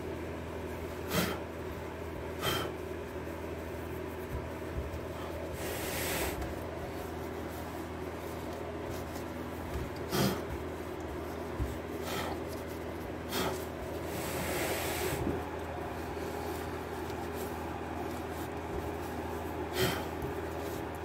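A cloth wiping and rubbing over a freshly sanded alloy wheel to clear the dust, with a few short sharp scuffs and knocks, and twice a longer breathy blow as dust is blown off the rim. Under it runs a steady low hum.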